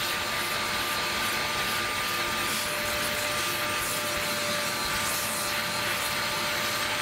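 Caramba 7.0 wet-dry vacuum running steadily with a constant motor whine, its nozzle drawn over a carpeted car floor mat in dry vacuuming.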